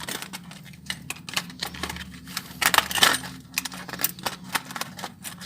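Small metal hose clamps clinking and rattling as they are handled, a string of irregular light metallic clicks.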